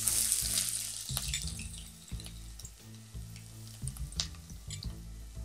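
Sliced onions sizzling as they hit hot mustard oil in a stainless steel pot. The sizzle is loudest at first and dies down over the next couple of seconds, with a few scattered crackles.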